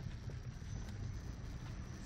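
Fiat Punto mk2 1.2 8v running at light load while driving: a steady low rumble of engine and road noise, with no turbo-whistler whistle heard.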